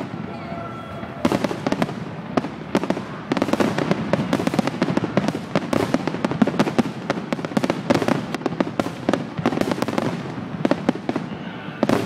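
Fireworks display: aerial shells bursting in a rapid, dense run of bangs and crackles, growing thicker and louder about three seconds in.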